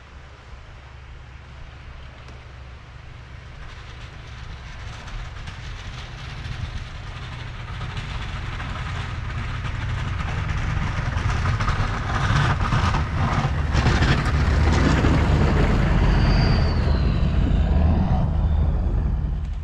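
1999 GMC K3500 pickup pushing snow with a Fisher plow: the engine runs steadily under load while scraping and clattering from the blade and snow grow steadily louder, then stop abruptly near the end.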